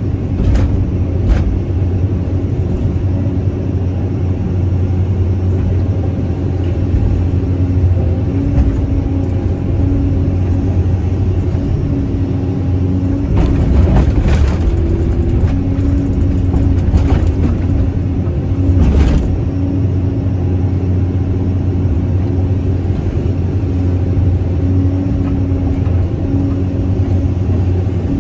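Caterpillar 320C hydraulic excavator heard from its cab: the diesel engine runs steadily with a deep hum while a higher whine cuts in and out as the boom and bucket are worked, digging soil and loading a dump truck. A few brief knocks stand out, the clearest around the middle and about two-thirds of the way through.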